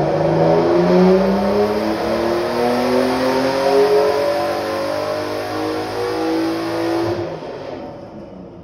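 Turbocharged BMW M50/M52 inline-six in an E36 making a full-throttle pull on a chassis dyno, its pitch rising steadily through the revs. About seven seconds in the throttle closes and the sound falls away as the engine and dyno rollers wind down.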